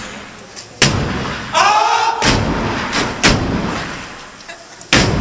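Step team stomping and clapping in unison: about five loud, sharp strikes at uneven spacing, with a voice shouting over the second one.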